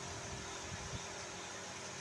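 Electric fan running steadily: an even whooshing hiss of moving air with a faint steady hum, and a low rumble that drops away about a second in.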